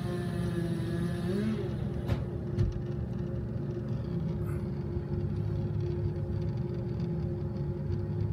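Engine running steadily at a fast idle, with a brief rise in pitch just over a second in and a sharp knock about two seconds in.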